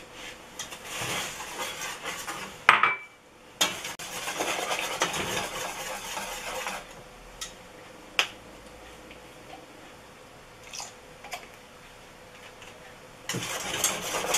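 Kitchen handling sounds at a large metal pot of milk: sugar poured in from a glass, with sharp clinks of glass and utensils against the pot and counter, then a spoon stirring in the pot near the end.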